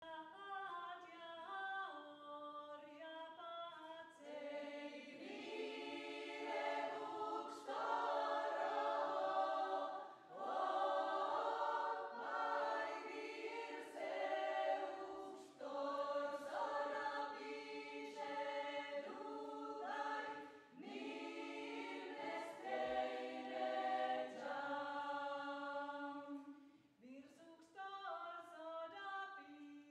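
Women's choir singing a cappella, in sustained phrases with brief pauses between them.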